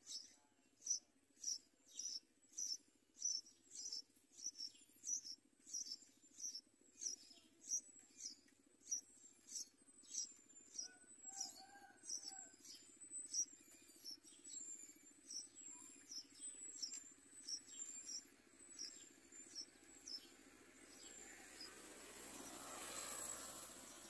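Bulbul nestlings begging: thin, high-pitched cheeps repeated about twice a second, growing weaker and more ragged until they fade out near the end. A brief swell of noise follows near the end.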